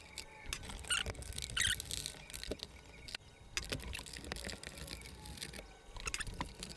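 Faint scattered clicks and scrapes of a hex (Allen) key working the bolts that hold a motorcycle Tour-Pak trunk to its mount.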